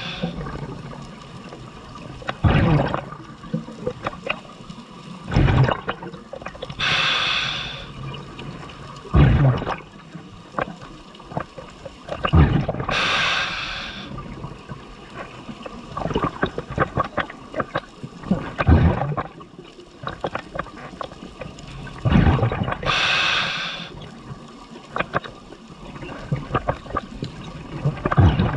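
Scuba diver breathing through a regulator underwater. There are three long hissing inhales through the second stage, and between them bursts of exhaled bubbles that rumble and crackle past the housing.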